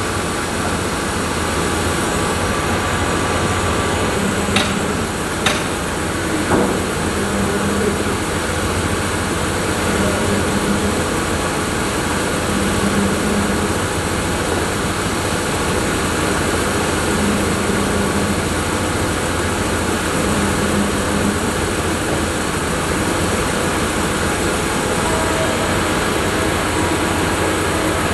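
Sawmill machinery running steadily with a dense, even noise, with a few sharp knocks about five seconds in.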